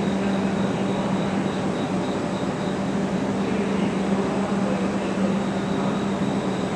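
Steady hum of an elevated shinkansen station platform: a constant low drone over an even rumble of machinery and ventilation noise, with no distinct events.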